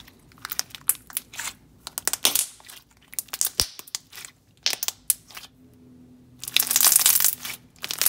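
Hands squishing and pressing a thick, glossy shimmer slime, its trapped air popping in quick runs of small wet pops and squelches, the longest and loudest run about six and a half seconds in.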